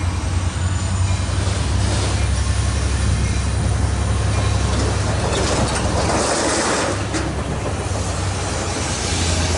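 EMD GP-series diesel locomotive approaching under power, its engine giving a steady low drone. A brief rushing noise swells up about halfway through.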